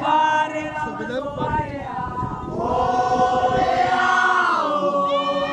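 A group of voices singing a chant together, with long held notes that slide between pitches.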